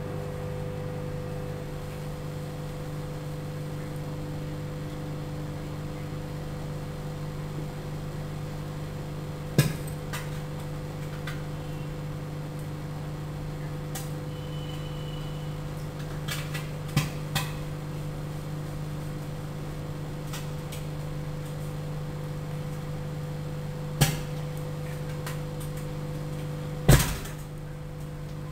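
Microwave oven running with a steady hum while a whole egg heats inside. It gives four sharp pops, the loudest near the end, typical of steam pressure building in the shell.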